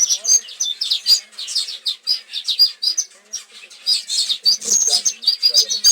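Small birds chirping and chattering rapidly, several at once, in many short high chirps.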